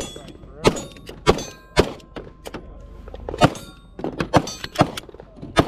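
9mm Glock 49 pistol firing single shots, about five sharp reports at uneven intervals. Fainter cracks fall between them.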